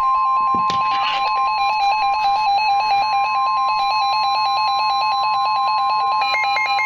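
Weather radio warning alarm: a steady, loud tone near 1 kHz, which marks the start of a new severe thunderstorm warning broadcast. A rapid, evenly pulsing electronic beep sounds over it and shifts to higher notes near the end.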